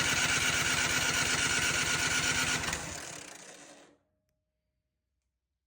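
Snowblower engine being cranked by its starter, turning over in a fast even rhythm without catching, then slowing and dying away about three seconds in. It won't fire after sitting three years: it has spark, and the fault is a gummed-up carburetor.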